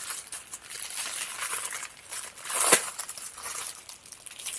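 Plastic packaging crinkling and rustling as it is handled, with one sharp crackle a little over halfway through.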